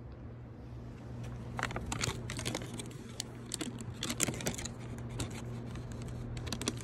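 A plastic bag being handled, crinkling in quick irregular rustles from about a second and a half in, over a steady low hum.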